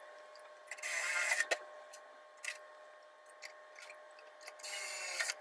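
Small clicks and two short rasping bursts from hand tools working sheet metal as Cleco fasteners and tabs are set into the fender panel. The bursts come about a second in and near the end, over a faint steady hum.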